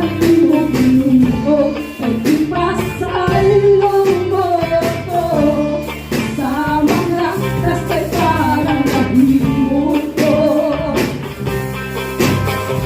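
Live worship band music: a singer's voice over guitar, with a drum kit keeping the beat.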